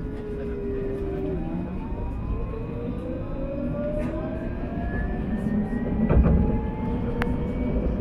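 Alstom Citadis 402 tram's traction motors whining and rising steadily in pitch as it picks up speed, over a low rumble of wheels on rail. A heavy knock comes about six seconds in.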